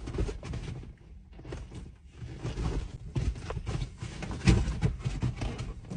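A person biting into and chewing a soft-bun sandwich with their mouth close to the microphone: irregular wet mouth and chewing noises.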